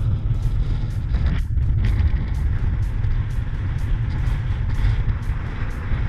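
Wind buffeting the camera microphone as a steady low rumble, with a light regular ticking about three times a second.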